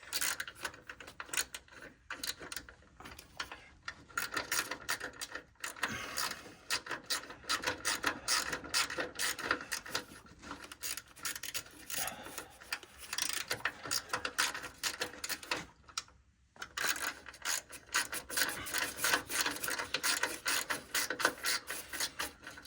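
Ratchet wrench clicking rapidly in repeated bursts as small bolts are wound in, with a short pause about two-thirds of the way through.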